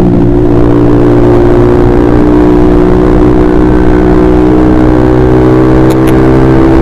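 Honda CBR150R's single-cylinder engine running loud through an aftermarket KJ Pro Performance exhaust while riding, holding a nearly steady pitch that rises slightly near the end.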